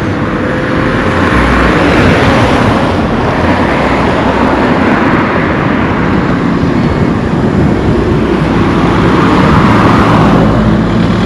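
Road traffic passing close by: a steady rush of engine and tyre noise that swells as vehicles go past, loudest about two seconds in and again near the end.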